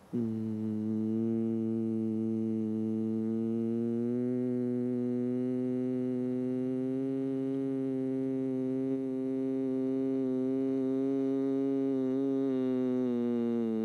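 A sustained musical drone: one held note with a steady low tone beneath it, starting abruptly and holding the same pitch throughout, rising a little after a few seconds and dipping slightly near the end.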